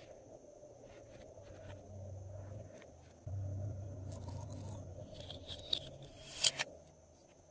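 Glossy slime being worked by hand, with small sticky clicks and crackles and one sharp, louder crackle about six and a half seconds in.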